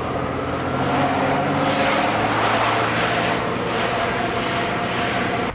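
An engine running steadily and fairly loudly, with a held drone, that cuts off suddenly at the end.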